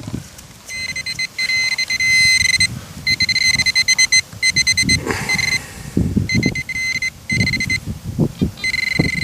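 Garrett handheld pinpointer sounding its high, steady alert tone in repeated bursts of about a second as it is probed through loose soil: it is picking up a metal target. Low scraping of soil and gloves against the probe comes in under the tone from about halfway through.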